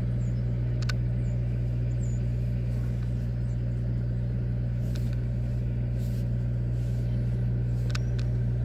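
A steady low mechanical hum, with a few faint clicks about a second in and again around five, six and eight seconds in.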